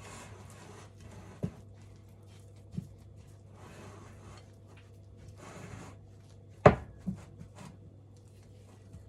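Stiff scone dough being stirred in a mixing bowl: soft scraping and rubbing, with several knocks of the mixing utensil against the bowl, the loudest about two-thirds of the way through.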